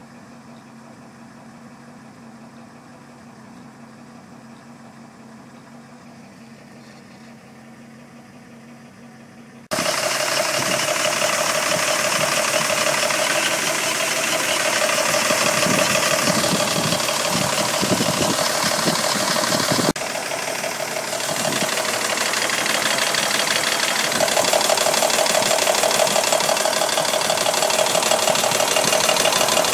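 Mercedes-Benz M117 V8 idling with a ticking rattle from the passenger-side cylinder bank, which the owner's friends take for noisy hydraulic valve lifters. It is faint for the first ten seconds, then suddenly much louder and closer.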